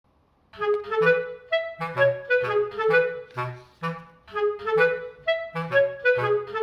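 Light instrumental background music: a melody of short, bouncy notes over a repeating bass line, starting about half a second in.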